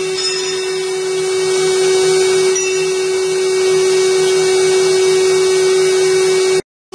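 Spindle of a CNC wood-carving machine running a small carving bit through a wooden chair leg: a steady high-pitched whine over the hiss of the cut. It cuts off suddenly near the end.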